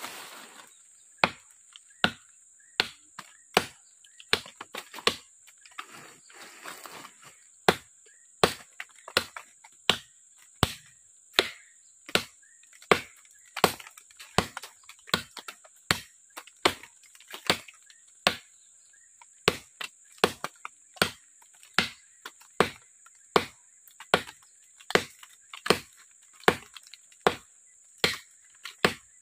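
Short, heavy parang (machete) chopping into the wood of a small tree trunk, sharp blows a little faster than one a second, with a brief break about six seconds in.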